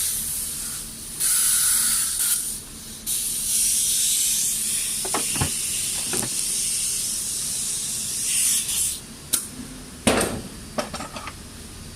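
A steady hissing spray in three bursts, the last lasting about six seconds, with a few sharp knocks during it; near the end comes a cluster of knocks and clicks.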